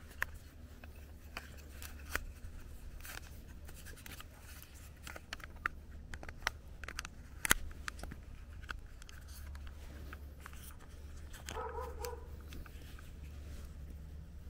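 Plastic clicks and handling of a smartphone gimbal's spring-loaded phone clamp as a phone is pressed into it, with a sharp click about halfway through. A dog barks once briefly near the end.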